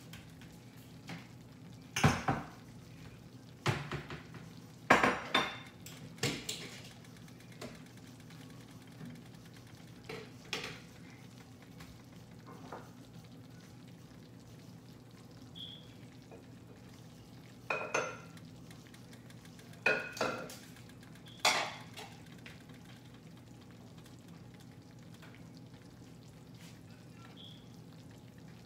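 Kitchen dishes, pans and utensils clinking and knocking: a cluster of sharp clinks in the first seven seconds and another around twenty seconds in, with single knocks between, over a steady low hum. This is broth being dished out of a crock-pot roast.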